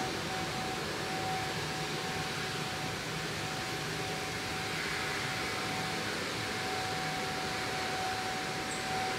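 Steady hiss with a constant mid-pitched whine running under it, even in level throughout.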